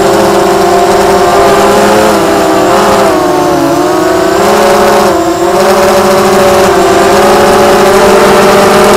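Blackout Mini H FPV quadcopter's motors and propellers whining loudly, recorded by its onboard camera, the pitch rising and falling with the throttle. The whine dips briefly about three and a half seconds and five seconds in as the throttle is chopped.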